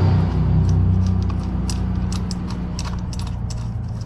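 Light, irregular metal clicks and clinks as an aftermarket exhaust mid pipe and its clamp are worked onto a motorcycle's header joint by hand, over a steady low hum.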